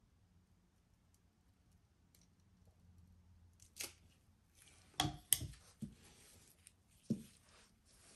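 Metal palette knife swiping through wet acrylic paint on a canvas: a few short, faint scrapes and clicks in the second half, after a near-quiet start.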